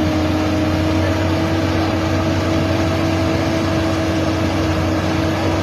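Heavy truck's diesel engine running hard at steady high revs, pulling up a dirt and mud hill.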